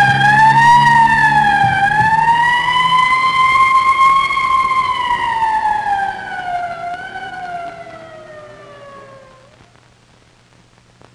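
Police car siren wailing: one long tone that wavers up and down, swells, then winds slowly down in pitch and fades out about nine seconds in.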